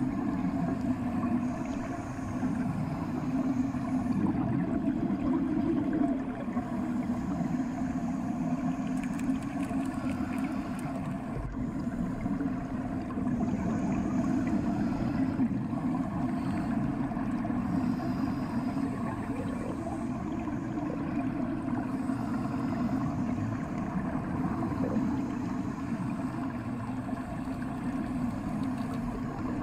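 Bathwater heard through a submerged microphone: a steady, muffled low rumble, the dull hush of ears under water.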